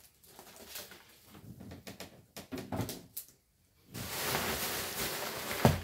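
Plastic bubble wrap being handled: scattered crinkles and light knocks, then a denser, steady rustling from about four seconds in, with a thump near the end.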